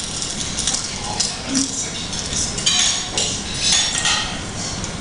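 A spoon breaking through the flaky puff-pastry crust on a bowl of truffle soup: dry crackling of pastry and small clinks of the spoon against the bowl, which thicken about halfway through, heard as playback over a room's loudspeakers.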